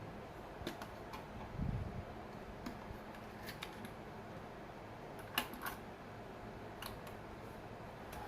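Scattered small metallic clicks and a dull knock of hands working at the server's CPU sockets, releasing the retention levers and lifting out a Xeon processor.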